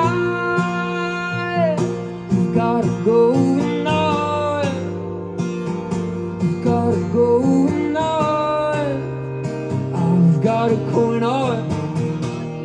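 Street busker singing long held, sliding vocal notes over a strummed acoustic guitar, amplified through a microphone and PA speaker.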